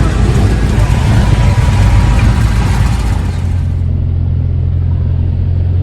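Cessna 172's piston engine and propeller droning loudly inside the cabin, a steady low hum under a hiss that thins out after about three seconds.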